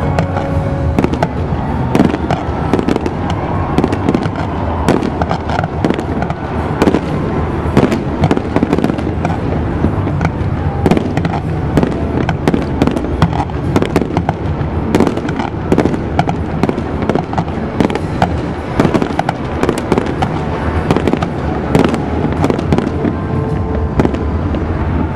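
Aerial fireworks display: a continuous barrage of shells bursting, many sharp bangs in quick succession mixed with crackling.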